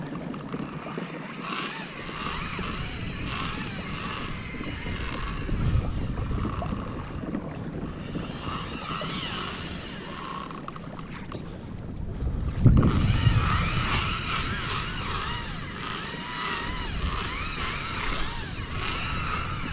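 Wind buffeting the microphone over open sea, with water lapping against a kayak's hull; it grows louder about two-thirds of the way through.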